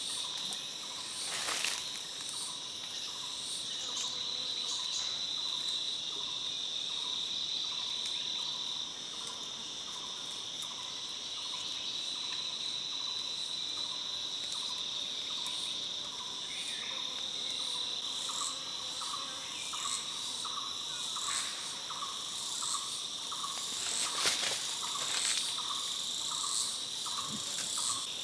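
Steady, high-pitched drone of forest insects calling, with a short lower note repeating about twice a second through the latter part and a few sharp clicks, the loudest near the end.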